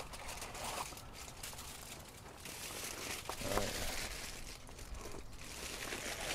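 Double layer of aluminium foil crinkling irregularly as it is pulled open from a pan of slow-cooked pork shoulder.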